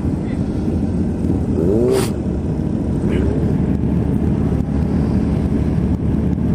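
Yamaha XJ6 inline-four motorcycle engine running at low revs while rolling slowly and stopping among other idling motorcycles, a steady low rumble. A brief voice and a click come about two seconds in.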